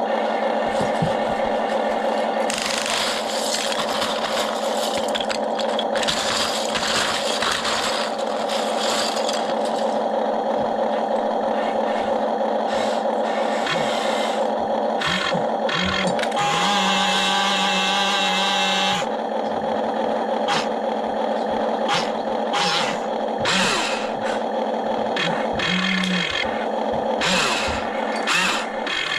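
RC excavator's motors whining steadily, with repeated bursts of scraping and rattling as the bucket digs through plastic Lego bricks. Past the halfway mark a motor strains at a steadier, higher pitch for a couple of seconds.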